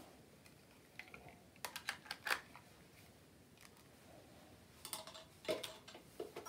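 Faint, scattered clicks and taps of plastic and metal as a jack plug and a small plug-in unit are handled and pushed into a guitar pedal's input socket: a cluster of clicks about two seconds in, and a few more near the end.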